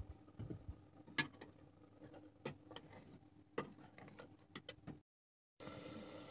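Metal spatula clicking against a steel cooking pot, a handful of sharp taps a second or so apart. After a brief drop-out near the end, a steady sizzle of the curry frying as it is stirred.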